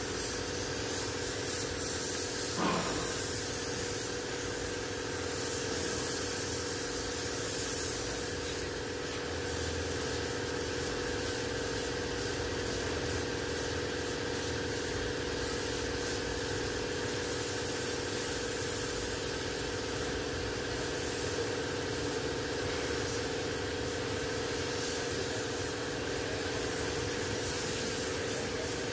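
Compressed-air gravity-feed spray gun hissing as paint is sprayed onto a car body, the hiss swelling and easing in passes over a steady machine hum.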